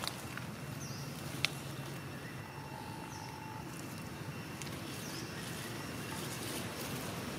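Quiet outdoor ambience with steady low background noise and a few faint, short, high chirps from birds. A single sharp click sounds about a second and a half in.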